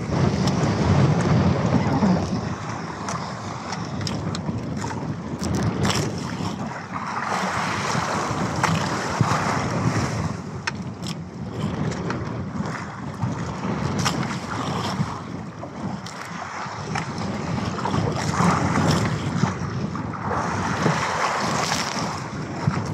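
Wind buffeting the microphone and waves splashing against the hull of a small outrigger boat, the rush of water swelling and easing every several seconds, with a few light knocks.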